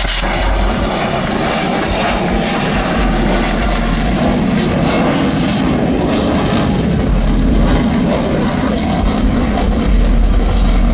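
Aircraft flying a display overhead, its engine noise loud and steady throughout.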